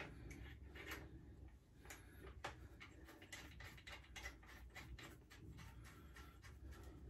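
Faint, irregular small clicks and ticks from a hand tool snugging up bolts on a pit bike, heard in a quiet workshop.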